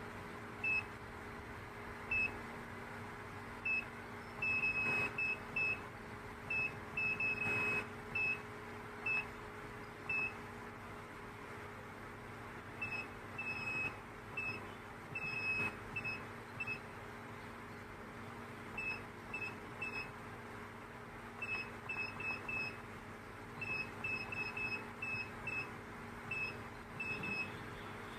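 Short high beeps from a CNC gemstone grinding machine's control-panel keypad as buttons are pressed, irregularly spaced, some in quick runs and a few held a little longer, over the machine's steady motor hum.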